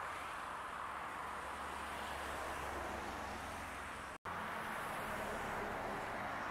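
Steady hiss and hum of traffic on a four-lane highway: cars, motorcycles and trucks driving past. The sound cuts out for an instant a little over four seconds in.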